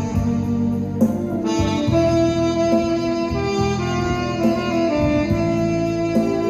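Saxophone playing a melody of held notes over instrumental accompaniment.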